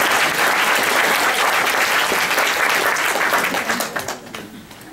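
Audience applauding in a lecture hall, the clapping dying away about four seconds in.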